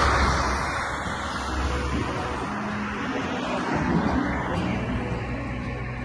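Road traffic: a vehicle passing on the road close by, loudest at the very start and easing off into a steady low rumble.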